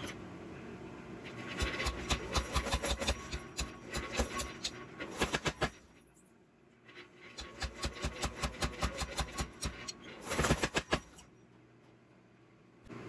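Hammer striking hot steel on an anvil in two runs of quick, even blows, about four a second, with a short pause between them, over a steady low hum.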